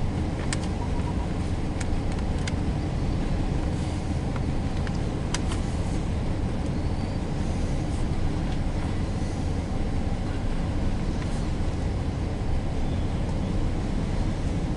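Steady low rumble of a loaded Union Pacific coal train rolling past, with a few faint clicks from the wheels and cars.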